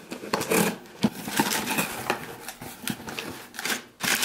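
Small box cutter slicing through packing tape on a cardboard shipping box, then the flaps being pulled open and brown packing paper inside rustling and crinkling, with irregular scratchy noise and sharp little clicks.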